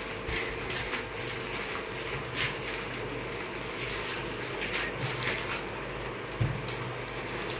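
Scattered crinkles, rustles and taps of snack packets, plastic bottles and plates being handled while eating, with a low thump near the end, over a steady low hum.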